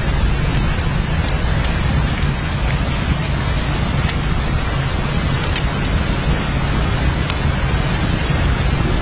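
Steady heavy rain, an even hiss with scattered sharp drop ticks over a continuous low rumble.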